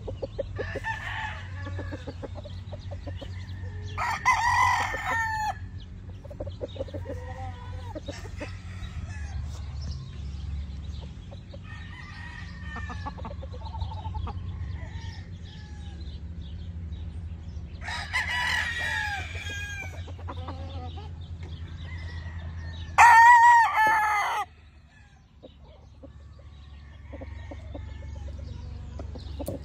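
Gamefowl roosters crowing: three loud crows from different birds, the loudest about two-thirds of the way through, with fainter crows and clucking between them. A low steady hum runs underneath.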